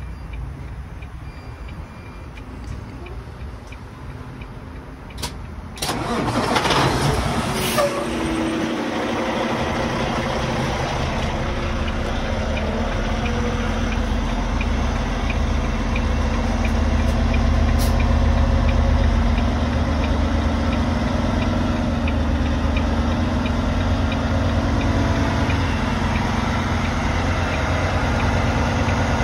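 Volvo semi tractor's diesel engine cranking and catching about six seconds in, then idling steadily, started to build up air pressure for the trailer supply. Before it starts, a faint regular ticking.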